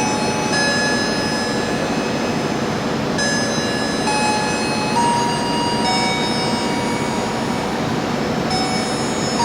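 A train running through the station, a loud steady rush of wheel and rail noise. Over it, held tones shift pitch every second or so in a repeating pattern.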